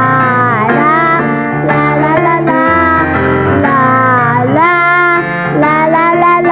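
Music: a children's song, with children's voices singing a melody over a steady instrumental accompaniment.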